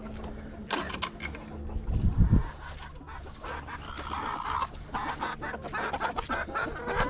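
Hens clucking in a chicken pen, a run of short repeated clucks building in the second half, with a few sharp clicks about a second in and a heavy low thump just after two seconds.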